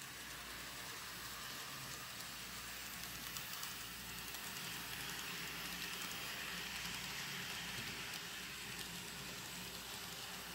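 Kato N scale model train running on Unitrack: a faint, steady hiss of small wheels rolling on the rails and the little motor, a little louder about halfway through as the train passes close.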